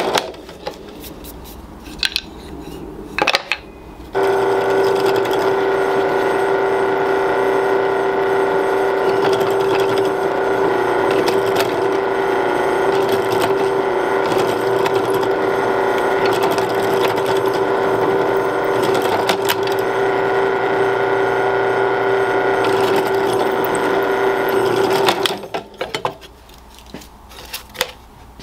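Benchtop drill press switched on about four seconds in, its motor running with a steady hum for about twenty seconds while drilling pin holes through a knife handle block, then switched off. A few clicks and knocks of handling come before and after.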